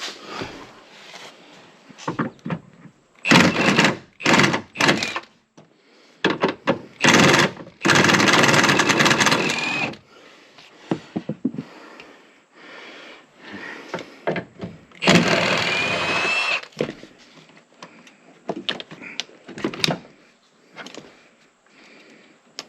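Work noise on a car's interior parts: knocks and clatter broken by three loud bursts of mechanical noise. The longest burst lasts about two seconds, and the last one carries a whine.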